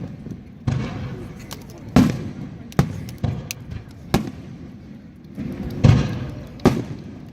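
Aerial fireworks shells bursting overhead: about six sharp booms, one every second or so, each trailing off in a rumbling echo and crackle.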